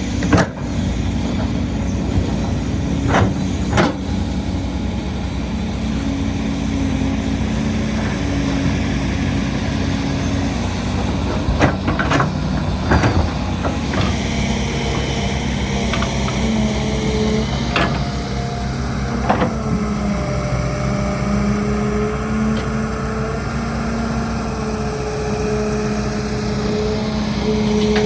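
Heavy diesel construction machinery running steadily, with scattered sharp knocks and clanks. A steady whine joins in about two-thirds of the way through.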